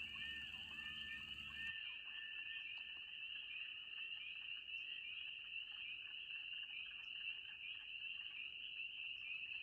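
A dense chorus of spring peepers, many high peeps merging into one steady shrill. In the first second or two, faint drawn-out loon calls sound beneath it.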